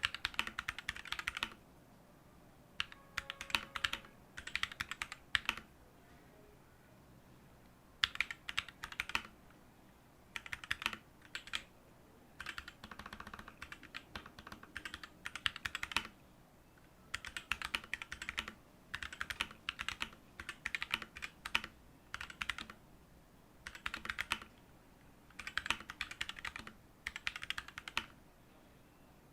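Mechanical keyboard fitted with factory-lubed Durock L7 62g linear switches being typed on in bursts of rapid keystrokes, each burst about a second long, with short pauses between.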